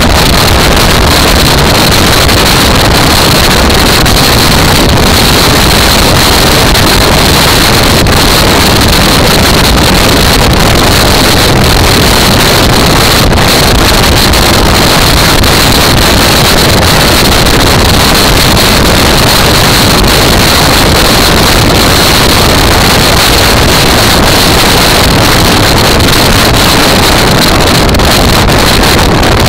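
Motorcycle at steady cruising speed: loud, unbroken wind noise on the microphone over the engine and road noise, with a steady high hiss.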